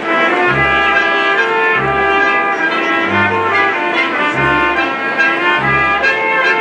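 Brass band music: trumpets and trombones playing a melody over a low bass note that comes about every second and a quarter, like a dance for the festival giants.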